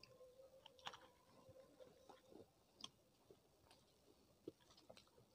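Very faint eating sounds of a person eating rice by hand: fingers mixing rice on a plate and soft chewing, with scattered small clicks.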